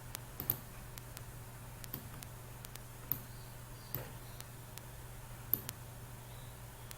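Sparse, light clicks, computer mouse clicks, about five louder ones among fainter ticks, over a low steady hum.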